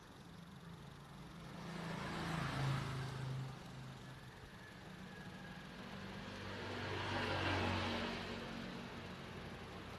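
Motor vehicles passing by twice, each engine hum and road noise rising and fading, the first about two and a half seconds in and the second around seven seconds.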